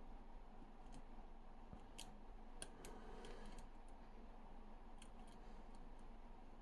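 Faint, scattered metallic ticks and a brief light scrape from a flat dimple pick probing the pins of an ABA dimple lock held under tension, a few ticks about a second apart.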